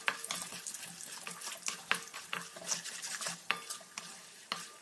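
Wooden spatula stirring peanuts and chana dal in hot oil in a steel kadai, roasting them until they brown. It makes irregular scraping clicks against the pan over a light frying sizzle.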